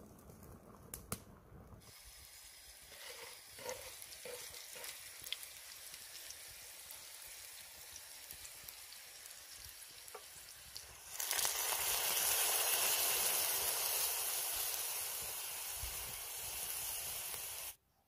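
Food sizzling in a hot pan. A quieter sizzle with a few light clicks gives way about eleven seconds in to a much louder, steady sizzle that cuts off suddenly near the end.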